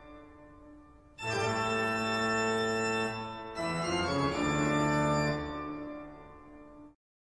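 Organ music played in sustained chords: a chord dies away, a loud new chord comes in about a second in, changes to another chord past the middle, then fades and cuts off to silence near the end.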